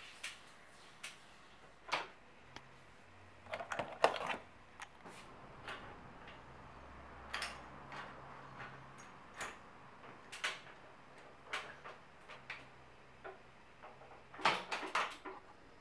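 Irregular clicks and light metal knocks of bicycle headset and stem parts being handled and fitted onto the fork's steerer tube, the sharpest about four seconds in and a quick cluster near the end.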